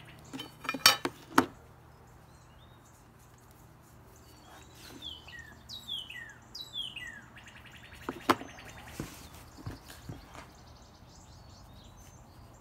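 Metal lid of a Kiwi mink oil tin clinking as it is taken off and set down, sharp clicks about a second in, with another light clink later. In between, a bird calls a series of short notes that slide down in pitch.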